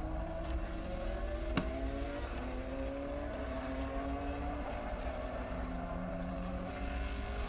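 Race car engine on a Le Mans test lap accelerating through the gears, its pitch climbing steadily and dropping back at each upshift, several times over. A sharp click about a second and a half in.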